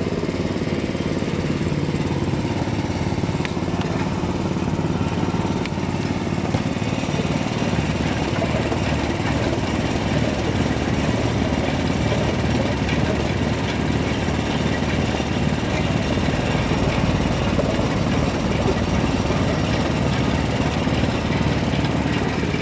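Small engine of a roadside sugarcane juice crusher running steadily.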